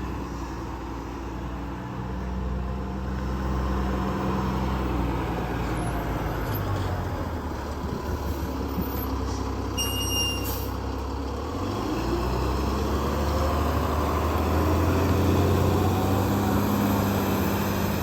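Heavy diesel engine of fire apparatus running, its pitch shifting a couple of times as it revs and changes gear, with a short high-pitched beep about ten seconds in.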